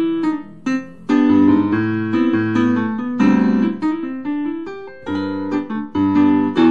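Kawai CA17 digital piano playing its Modern Grand piano voice, a bright-toned grand piano sound: struck chords and melody notes, some chords held for a second or two.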